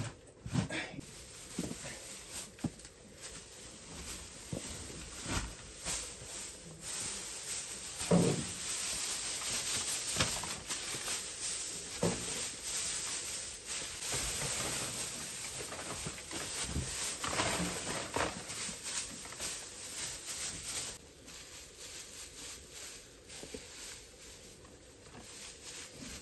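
Dry straw rustling and crackling as armfuls of it are tossed and spread over an earth floor, with scattered knocks and scrapes of a shovel. The rustling quietens about twenty seconds in.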